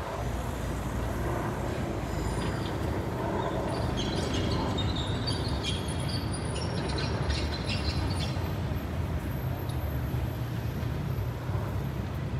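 Train moving along the tracks with a steady low rumble, with scattered high-pitched squeals between about two and nine seconds in.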